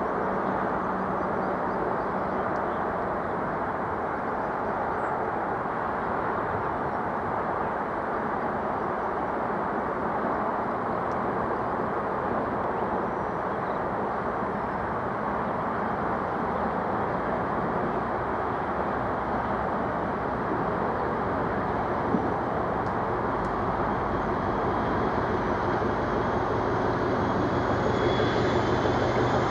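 Class 56 diesel locomotive's Ruston-Paxman V16 engine running with a steady rumble. Near the end it grows louder and a high turbocharger whine comes in.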